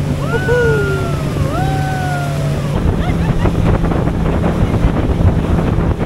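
Motorboat engine running at speed with a steady low hum, mixed with water rushing past the hull and wind buffeting the microphone.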